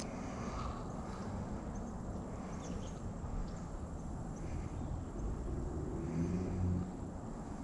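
Outdoor riverside ambience: a steady low rumble, like wind on the microphone, with faint short bird calls every second or two.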